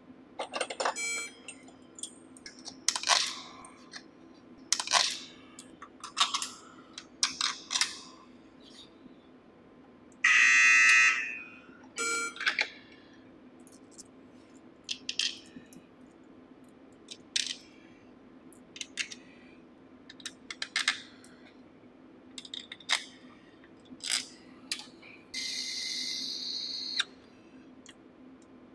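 Small metal screws clicking and rattling as they are picked out of plastic parts bins, with an electronic buzzer sounding once for about a second and a half near the middle. A second, higher-pitched steady sound lasts about a second and a half near the end.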